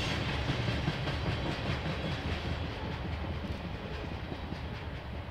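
Train rolling past, its railcar wheels clicking over the rail joints, the sound slowly fading as it moves away.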